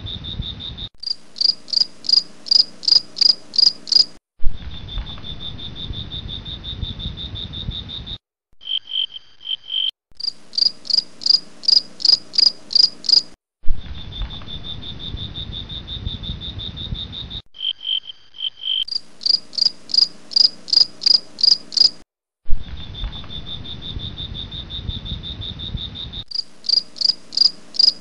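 Cricket sounds: a steady high trill alternating with runs of about eight sharp chirps, two or three a second. The sections switch abruptly and repeat in the same order about every nine seconds, like a looped night-sounds track.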